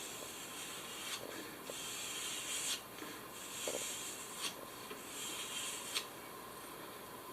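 Penknife blade stroked along a leather belt used as a strop: two longer dry, scraping swishes with several light clicks between them, as the edge is realigned.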